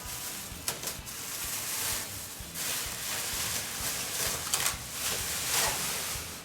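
Plastic protective sheeting rustling and crinkling as it is handled, in irregular swells with sharp crackles.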